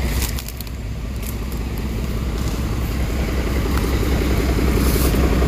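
JCB crawler excavator's diesel engine running with a steady low hum that grows gradually louder, with scattered clicks and clanks over it.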